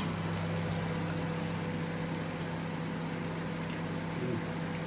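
A steady low mechanical hum with a faint higher tone above it, unchanging throughout.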